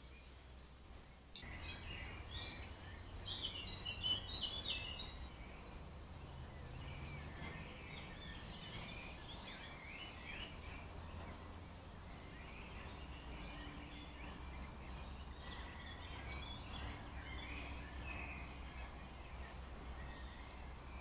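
Several songbirds singing and calling in woodland, many short chirps and whistles overlapping, picked up by a trail camera's microphone over a low steady hum.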